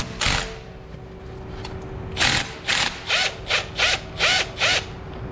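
Cordless power tool triggered in short pulses: one brief burst at the start, then about six quick bursts roughly half a second apart, the motor rising and falling in pitch with each one.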